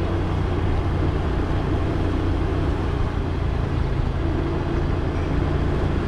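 A small motorbike engine running steadily while riding along a street, with road and wind noise as a continuous low drone.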